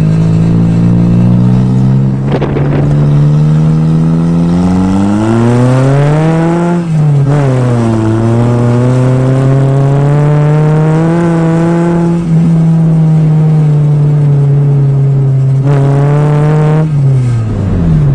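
Nissan 200SX's four-cylinder engine heard from inside the cabin, revs rising under acceleration, then dropping sharply at a gear change about seven seconds in. It pulls up again, holds a steady cruise, and the revs fall away near the end as the throttle comes off.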